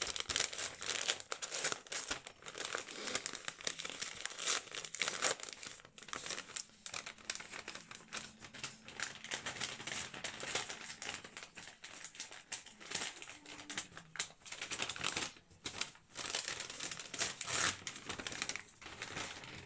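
Gift wrapping crinkling and tearing as a small present is unwrapped by hand: dense rustling broken by many sharp crackles.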